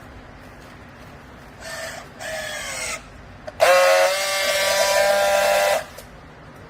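Garment press baler machine squealing under a low steady hum: two short squeals, the second dropping in pitch, then a louder steady squeal of about two seconds that cuts in and out abruptly.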